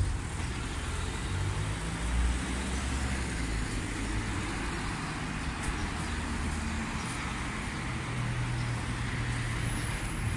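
Road traffic: passing cars, a steady mix of engine hum and tyre noise.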